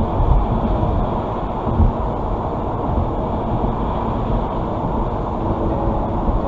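Steady low rumble of tyre, road and wind noise inside a car's cabin cruising at about 52 mph.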